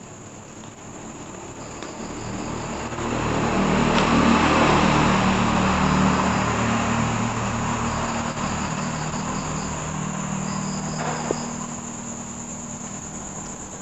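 A motor vehicle passing: its engine hum swells over a few seconds and then slowly fades away. Crickets chirp in short high trills throughout.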